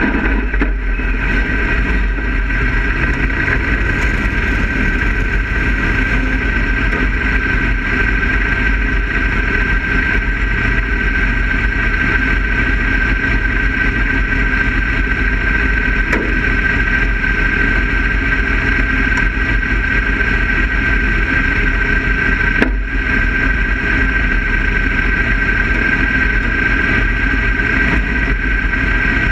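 Dirt-track race car's engine idling steadily, heard from inside the cockpit, with a steady high whine over it and a single brief knock late on.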